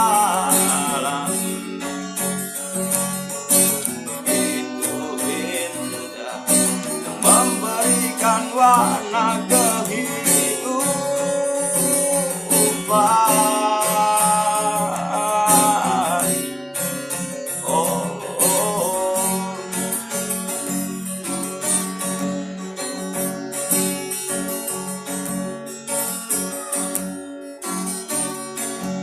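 Acoustic guitar strumming chords through an instrumental passage of a song, with a wavering higher melody line coming in and out over it.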